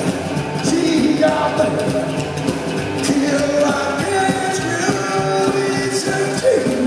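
Live psychobilly band playing loudly: upright double bass, electric guitar and drums under a lead line in a rock-and-roll style, with no break.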